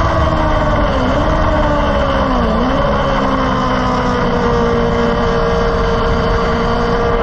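Onboard engine of a track-day vehicle, heard from a camera mounted on it, under heavy wind noise. The revs dip briefly and pick up again about one and two and a half seconds in, then hold fairly steady, sagging slightly near the end.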